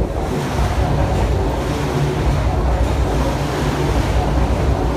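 MTR Kwun Tong line Q-Train pulling into the platform. The passing cars make a steady rushing noise of wheels on rail and displaced air over a low hum.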